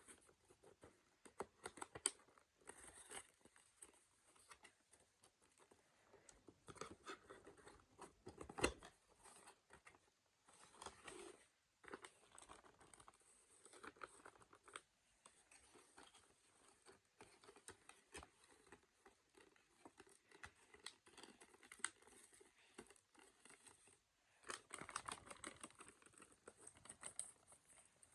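Faint rustling and crinkling of packaging being handled and opened, with scattered small clicks and taps. There are two sharper clicks, about two seconds in and about eight and a half seconds in.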